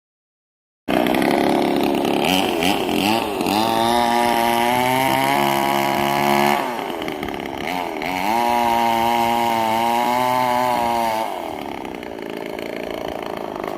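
Two-stroke chainsaw running hard, its engine pitch climbing and holding high twice with a dip between, then easing to a lower speed near the end.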